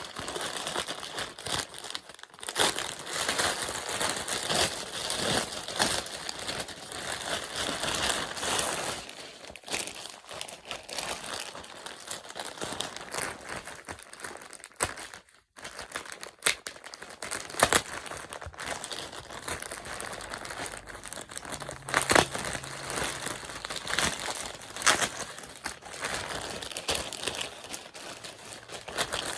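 Packaging crinkling and rustling as it is handled and pulled open to unwrap a new backpack, with many sharp crackles and a brief pause about halfway.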